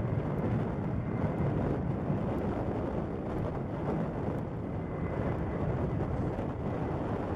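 Boeing 767-200ER's twin jet engines at takeoff thrust during the takeoff roll: a steady low rumble with a faint steady whine above it. Wind buffets the microphone.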